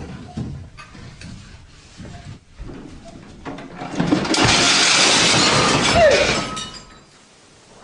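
Household things knocking and rattling in a room shaken as in an earthquake, then about three seconds of loud crashing and shattering like breaking glass and china, starting about three and a half seconds in.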